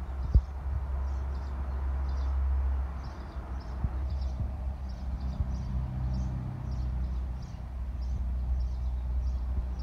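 Outdoor background sound: a steady low rumble with short, high chirps repeating about twice a second, and one sharp knock about half a second in.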